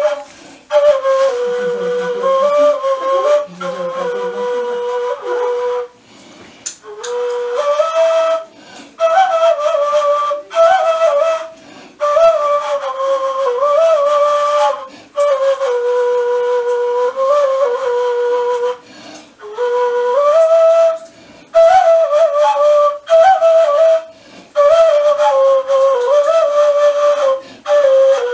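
Kaval, the Turkish end-blown shepherd's flute, playing a solo melody in short phrases separated by brief breaks for breath. The tune stays within a narrow range, with small turns and ornaments.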